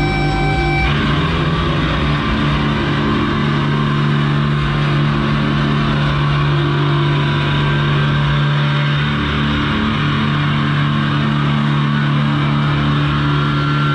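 Amplified, distorted electric guitar holding a loud sustained drone with a steady low tone under a noisy wash, without drums. A ringing feedback tone cuts off about a second in.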